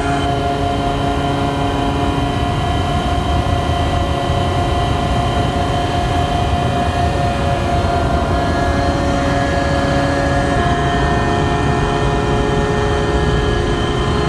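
Cargo ship's steering gear running: the electric motor and hydraulic pump of steering gear pump number two, which drive the steering rams on the rudder stock, give a loud steady machinery noise with many steady whining tones. A few of the tones shift pitch about ten seconds in.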